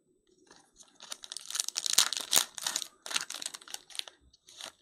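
Foil wrapper of a Panini Select football card pack being torn open and crinkled by hand. It is a dense crackling that starts about a second in, comes in several spells, and is loudest around two seconds in.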